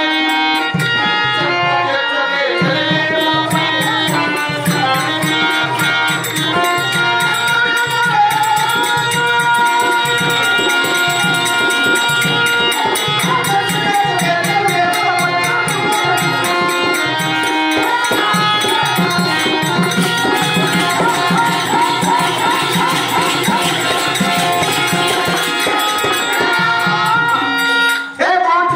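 Live traditional Indian folk-theatre music: a hand drum in a steady rhythm under a held melody line, with jingling ankle bells. The level dips briefly near the end.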